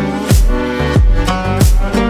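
Electronic background music with a heavy beat: a deep kick drum dropping in pitch about every two-thirds of a second under sustained synth chords.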